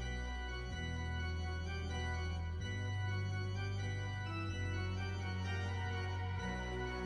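Background music: slow, sustained keyboard chords, with the low bass note changing every couple of seconds.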